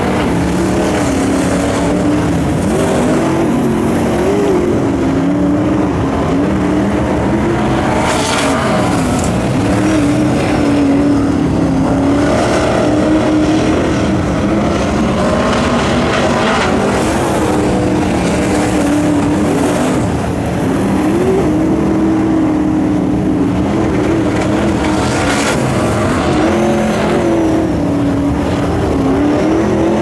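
Several dirt modified race cars' V8 engines running hard around a dirt oval, several engines overlapping, their pitch rising and falling as they lap through the turns.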